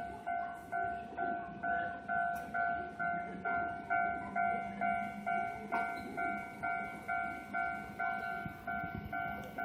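Japanese railway level-crossing (fumikiri) alarm ringing a steady, evenly repeated electronic ding, about two and a half dings a second.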